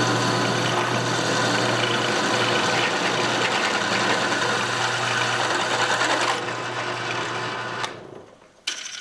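Benchtop drill press running, its bit cutting into a piece of metal angle clamped in a drill press vise: a steady motor hum under the grinding of the cut. It stops about eight seconds in.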